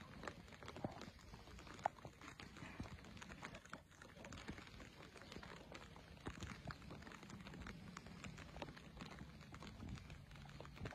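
Near silence broken by faint, scattered taps of the first light rain beginning to fall, with one slightly louder tap about two seconds in.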